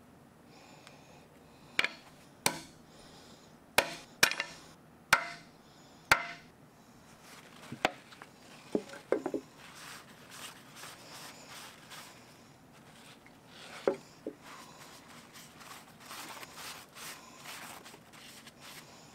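A ball-peen hammer tapping the brass pins of a wooden knife handle: about seven sharp taps in the first eight seconds, some with a short ring, and one more later. After that a rag rubs back and forth over the steel blade of a bolo knife.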